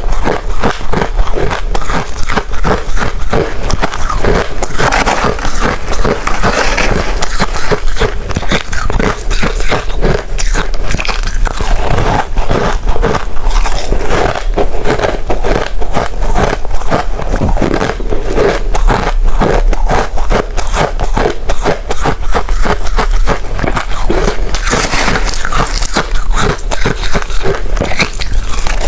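Close-up crunching of ice being bitten and chewed: dense, rapid cracking and crackling without pause.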